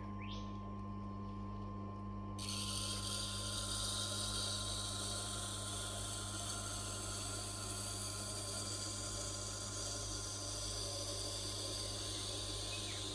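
Tormek T8 wet grinder's motor running with a steady hum. About two seconds in, the steel knife blade in the jig is set against the turning grindstone, and a steady grinding hiss starts and carries on.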